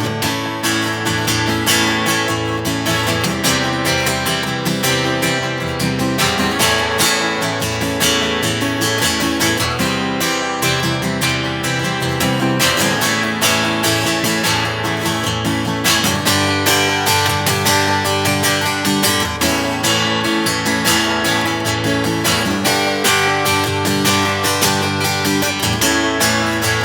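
Taylor GS5 acoustic guitar, with a cedar top and mahogany back and sides, strummed and picked with the fingers and no pick. It plays a run of ringing chords at a steady, even loudness.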